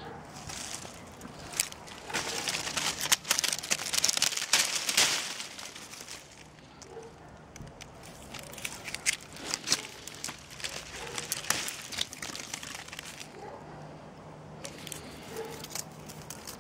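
Bonfire of dead citrus trees crackling and popping as the branches and leaves burn. A dense run of crackles about two seconds in gives way to scattered single pops.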